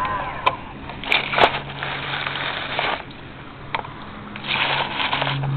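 Camera handling noise: rustling and scraping with a few sharp knocks as the camera is swung about.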